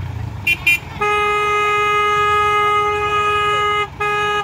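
Horn of an Eicher cement mixer truck over its low engine rumble: two quick higher toots, then one long steady blast of about three seconds, then a short blast near the end.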